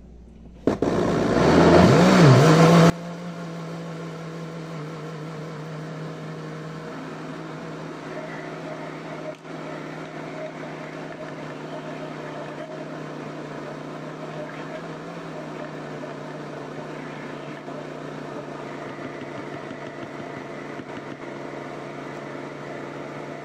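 Low-powered kitchen blender running on a thick cassava-starch (polvilho) batter. It starts about a second in, loudest for the first two seconds, then drops suddenly to a steady motor hum that holds for the rest of the time.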